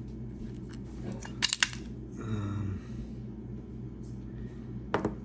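Small metal parts of a hand rivet gun clicking and clinking as they are handled: a few light clicks, a sharp cluster of clicks about a second and a half in, and one more near the end.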